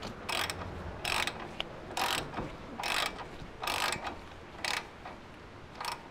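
Hand ratchet turning the brake line bolt into the caliper: seven short bursts of pawl clicking, a little under a second apart, one burst for each back-swing of the handle.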